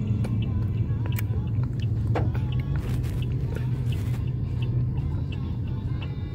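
Steady low rumble of road and engine noise inside a car's cabin, with small clicks and smacks of a toddler chewing a biscuit.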